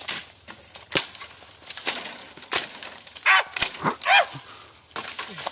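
Dry leaves and twigs crunching and snapping underfoot, with branches brushing and cracking as someone pushes through brush. Irregular sharp crackles run throughout, and two short high-pitched squeaks come about three and four seconds in.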